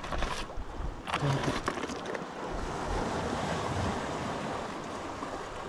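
Sea surf washing against the rocks with wind buffeting the microphone. In the first two seconds there is crackling rustle from hands rummaging in a plastic dry bag.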